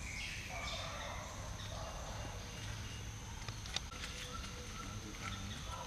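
Faint rural background with scattered bird calls, chickens among them, and one sharp click a little under four seconds in.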